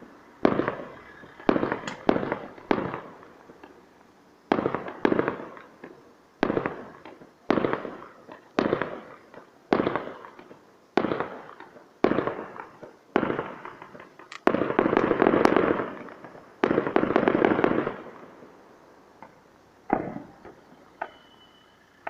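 Fireworks going off: a run of sharp bangs about one a second, each followed by a fading rumble, then two longer, denser crackling stretches past the middle, and a few smaller pops near the end.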